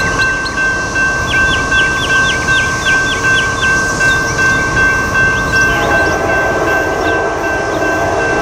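NEG electronic crossing bell on an active level-crossing signal ringing steadily, about two strikes a second, warning that a train is approaching. About six seconds in, the chord of a distant train horn comes in under the bell.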